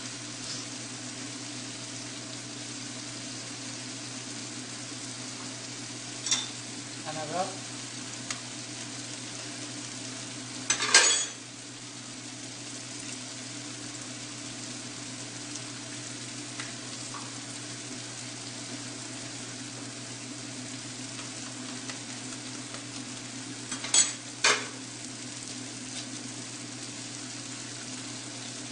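Eggs frying in a pan, a steady sizzle over a low hum. A few sharp taps stand out, the loudest about 11 seconds in and two close together near the end, as further eggs are cracked and added to the pan.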